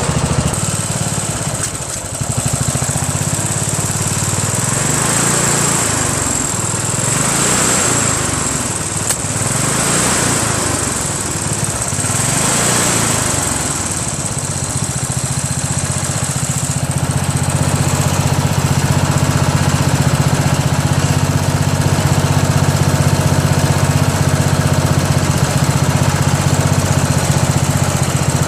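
Craftsman LT1000 lawn tractor's 15.5 HP Briggs & Stratton engine running, its speed rising and falling for the first half, then settling into a steady, slightly louder run. The owner puts its uneven running down to a fuel problem.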